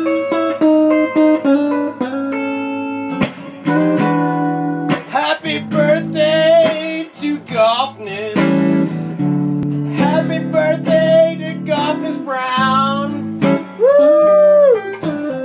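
Acoustic guitar picked and strummed, with a voice singing over it from about five seconds in and holding a long note near the end.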